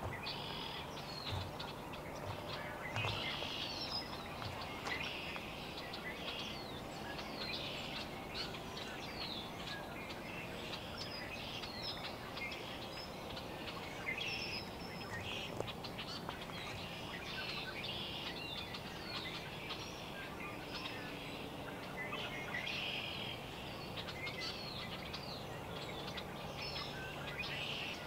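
Small birds chirping on and off over a steady low outdoor background hum.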